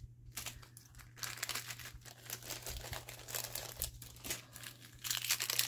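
Craft supplies being handled, with an irregular run of small crinkles and rustles that grows louder near the end, over a low steady hum.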